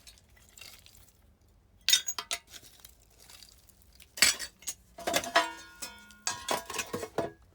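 Shards of old glass and other small hard finds clinking and knocking together as they are picked through by hand, in several bursts, some hits leaving brief ringing notes.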